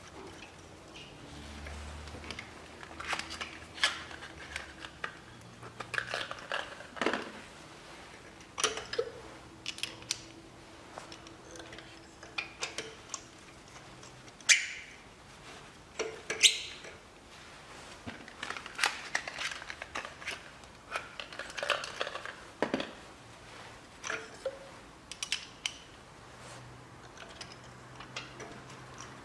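Ratchet torque wrench clicking and metal tools clinking as spark plugs are screwed in and tightened, in irregular short strokes, with two sharper clicks about halfway through.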